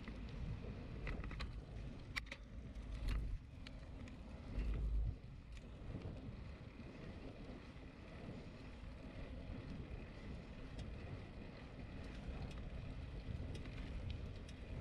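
Wind buffeting the microphone and a low road rumble while riding a bicycle, with heavier gusts about three and five seconds in. Scattered small clicks and rattles come in the first few seconds.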